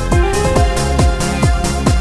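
Electronic dance music: a steady kick drum a little over two beats a second, with light ticking percussion between and held synth notes.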